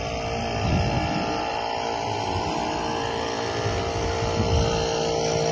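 An engine running steadily, with a constant hum and a rumble underneath.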